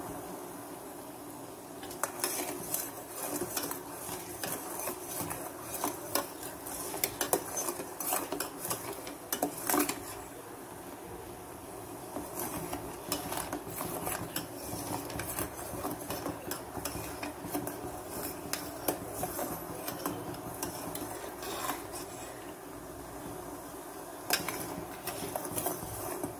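Metal spoon stirring in a steel pan, clinking and scraping against the sides and bottom in irregular strokes. The strokes begin about two seconds in, over a steady low hum.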